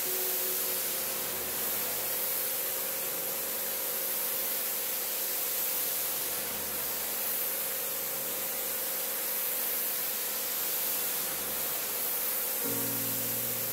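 Pressure-washer jet spraying water onto a rug, a steady hiss. Music starts near the end.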